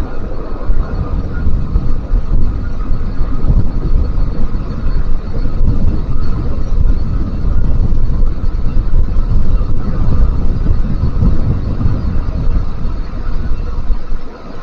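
Loud, steady jet rumble of an Airbus A380 airliner, with a faint high engine whine above it.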